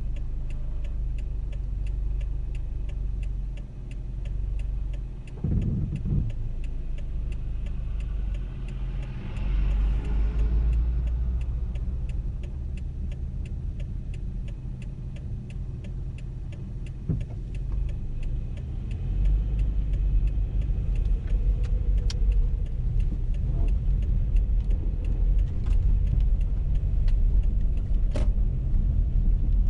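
A car driving on snowy roads: a steady low rumble of engine and tyre noise, with faint, evenly spaced ticks throughout. There is a brief rushing swell about a third of the way in, and the rumble grows louder and rougher about two-thirds of the way through.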